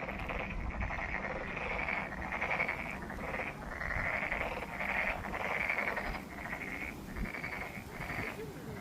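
A chorus of frogs calling, many overlapping calls following one another about every half second to a second without a break.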